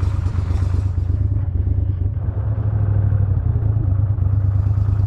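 Boat motor running steadily at a constant speed, a loud low drone.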